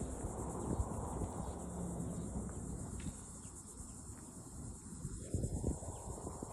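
A chorus of insects, crickets or katydids, making a steady, high-pitched pulsing trill, over a low rumble.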